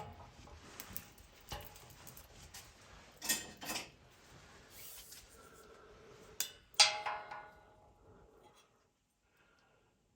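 Clanks and clinks of steel being handled and worked, as the bent steel shock-mount plate is set in the press. A loud metallic clang about seven seconds in rings on briefly.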